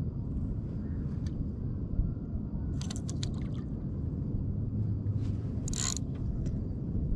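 Steady low rumble of wind and water on a chest-mounted action camera, with a quick cluster of sharp clicks about three seconds in and a short hiss near the end, as a spinning reel and rod are worked against a hooked trout.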